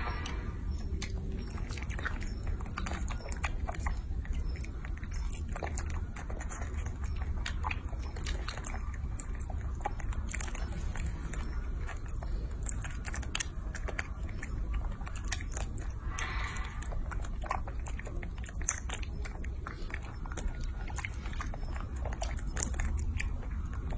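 Baby macaque sucking and chewing at the plastic spout of a snack pouch: many small wet smacking and clicking mouth sounds.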